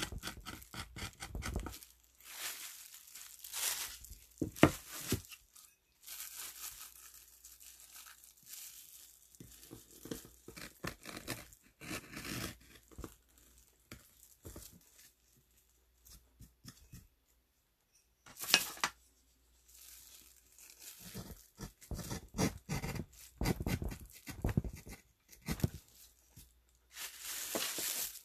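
Hand carving tool cutting into a wooden printing block: irregular runs of short scraping strokes as the blade digs through the wood, with a pause around the middle before the strokes pick up again.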